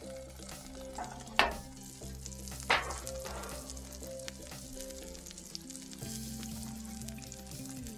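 Cheese-topped beef smash burger patties sizzling in their fat on a cast-iron griddle over charcoal. Two sharp metal clanks come about a second and a half in and again just over a second later, as the upturned baking pan covering them is lifted off.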